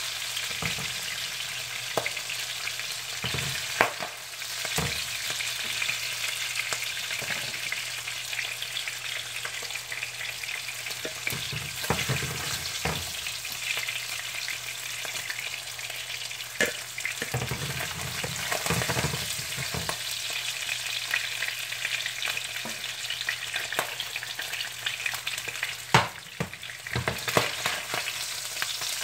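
Salmon pieces sizzling in hot oil in a frying pan, with scattered pops and crackles from the frying skin. There are occasional knocks of a silicone spatula against the pan as the pieces are turned and lifted.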